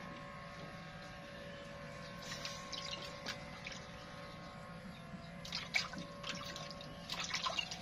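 Hands rinsing gutted fish in a plastic basin of water: splashing and dripping in short bursts, about two and a half seconds in, again near six seconds, and near the end.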